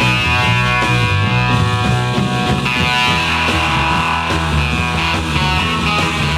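1960s garage rock recording in an instrumental passage between vocal lines: guitar band music with a steady bass line.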